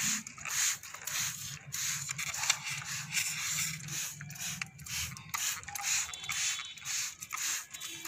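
Plastic trigger spray bottle pumped over and over, each squeeze a short misting hiss, about two a second.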